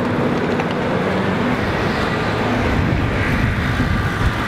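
Steady road traffic noise: a continuous rush of passing vehicles with a faint hum underneath.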